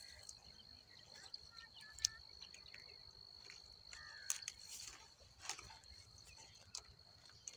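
Faint field ambience: a steady high-pitched insect trill throughout, with a couple of short bird chirps and a few faint clicks and rustles.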